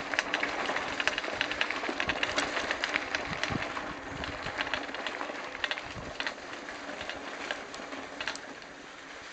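Mountain bike rolling over loose gravel and rock: tyres crunching and the bike rattling, with many sharp clicks and knocks, easing off a little in the second half.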